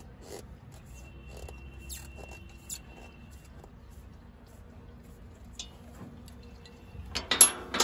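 Hand tool clicking and tapping on metal parts in a diesel engine bay, with scattered small clicks and a faint thin squeak, then a louder short clatter of metal about seven seconds in.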